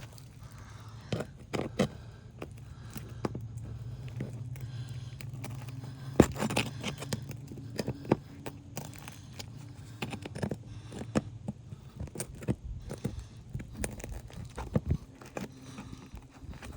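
Small pry bar scraping and clicking against asphalt shingles and roofing nails as the nails are worked loose, in irregular sharp clicks, the loudest about six seconds in. A steady low hum runs underneath.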